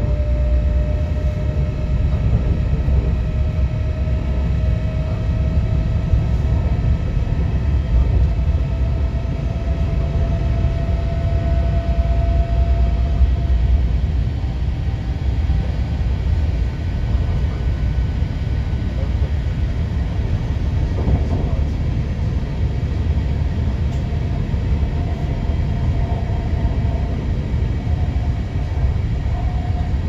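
Running noise heard inside a Type 72 electric multiple unit: a steady low rumble from the wheels and running gear, with a thin traction-motor whine that rises slowly in pitch over the first dozen seconds. Fainter wavering tones come in near the end.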